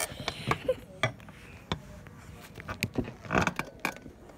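Handling noise of a phone being moved about in the hand: scattered light clicks, knocks and rustles.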